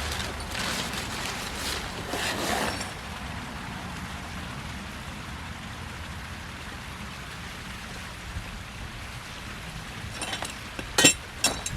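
Steady outdoor background noise with some soft rustling in the first few seconds, then sharp metallic clinks near the end as loose bolts and metal parts of a garden tool kit are handled during assembly.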